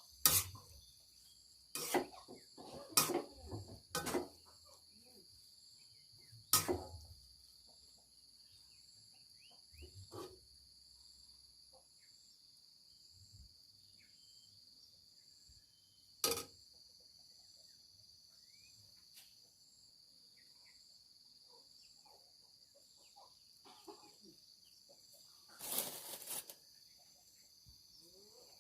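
A steady chorus of insects, high-pitched and unbroken. Several sharp knocks come in the first seven seconds, then fainter ones around 10 and 16 seconds in, and a longer clatter about 26 seconds in.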